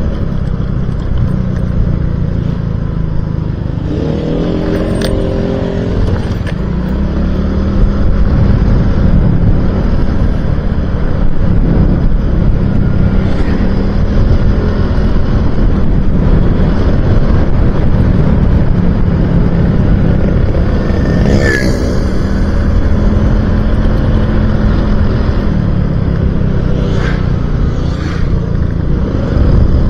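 Motorcycle engine running steadily while riding, mixed with heavy wind rush on the microphone; the engine note shifts up and down now and then.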